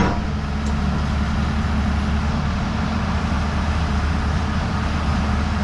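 Hyundai R210 hydraulic excavator's diesel engine running steadily as the machine works its boom and arm, with one sharp knock right at the start.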